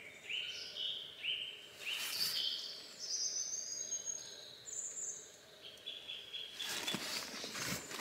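A songbird singing a run of short, high notes that change pitch from note to note. Slurps of hot tea from a metal mug about two seconds in and again near the end.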